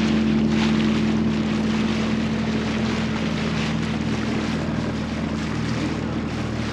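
Small boat outboard motor running at a steady speed, its hum under the rush of water and wind noise on the microphone.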